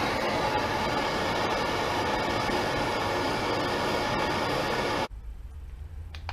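MAP gas torch burning with a steady hiss, heating the brake rotor bolts to cook off their thread lock. It shuts off suddenly about five seconds in.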